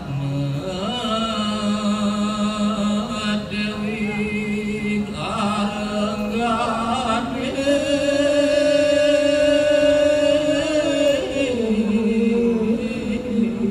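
A man's voice chanting a Sasak pepaosan tembang, the sung reading of a lontar (takepan) manuscript: long held, slowly gliding notes with a wavering vibrato. The line climbs to a higher, long-held note a little past halfway and falls back near the end.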